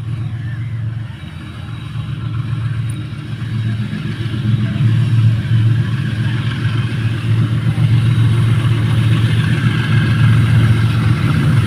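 Diesel-electric locomotive hauling a container freight train, its engine running with a steady low hum that grows louder as it approaches.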